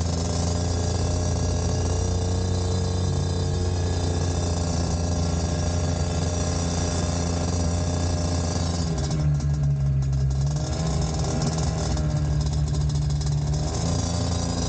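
Small 50cc engine of a mini trail bike running as it is ridden. It holds a steady pitch, with a shift in pitch about nine seconds in.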